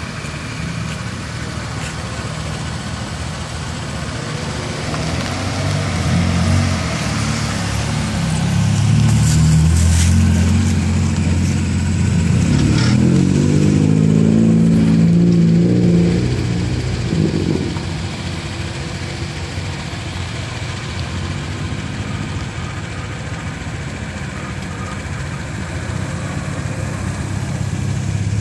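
Car engines running as cars pull out one after another and drive off. About halfway through, one car's engine revs and accelerates with its note rising, then drops away; steady engine running continues, building again near the end.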